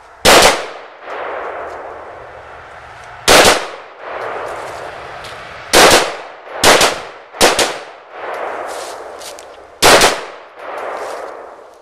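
About six gunshots fired at uneven intervals, each sharp crack followed by a long rolling echo.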